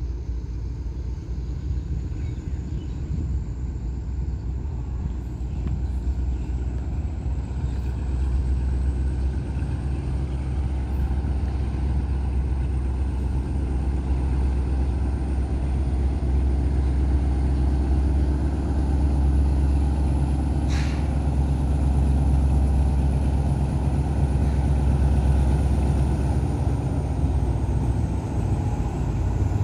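Diesel locomotive of a freight train approaching slowly, its engine a deep steady rumble that grows gradually louder as it nears.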